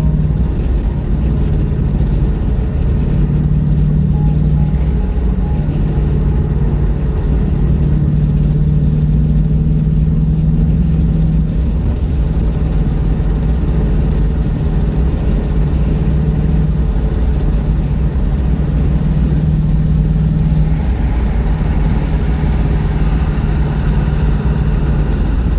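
A car being driven: a steady low engine and road hum, with more tyre and wind hiss over the last few seconds.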